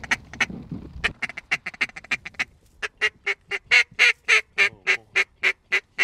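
Mallard duck call blown in a hunting blind: a quick run of short quacks, then a string of about a dozen evenly spaced quacks, about four a second, that swell loud and then taper off. It is calling to a flock of ducks circling overhead.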